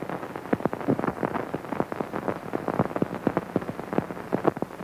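Rapid, irregular crackling and popping with no speech: the surface noise of a worn vintage broadcast recording's soundtrack.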